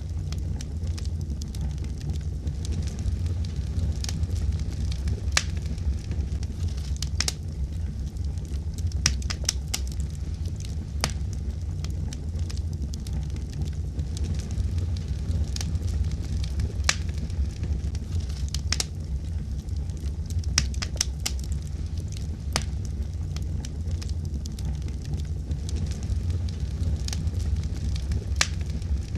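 Fire crackling: sharp, irregular pops and snaps over a steady low rumble of burning.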